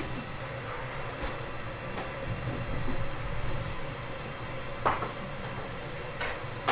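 A long wooden paddle stirring and pushing thick brown sugar syrup across a sheet-metal table to cool it, over a steady low rumble. Two sharp knocks come about five and six seconds in.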